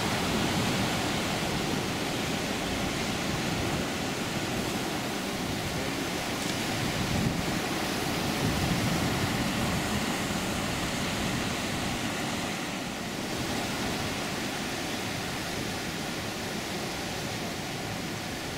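Ocean surf washing around rocks at the shoreline: a steady rushing noise that swells and eases a little.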